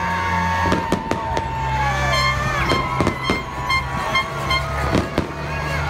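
Fireworks going off overhead: many sharp bangs in irregular quick succession. Underneath are long whistling tones, one gliding down about two seconds in, over a steady low drone.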